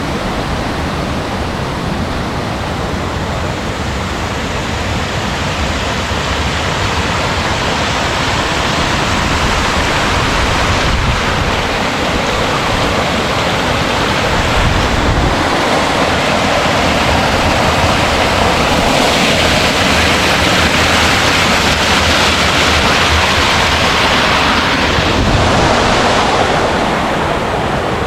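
Rushing water, a loud steady rush that slowly grows louder and eases a little near the end.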